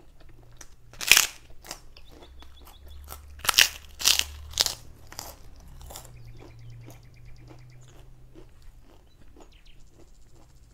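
Crunchy kerupuk cracker bitten and chewed close to the microphone: one loud crunch about a second in, a run of loud crunches a few seconds in, then softer chewing.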